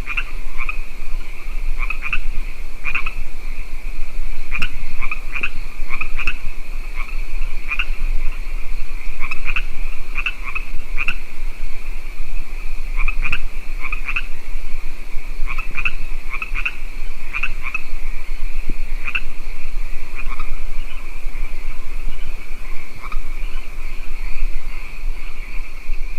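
Frogs croaking in short calls, often two or three in quick succession at irregular intervals, over a steady high-pitched chorus of insects.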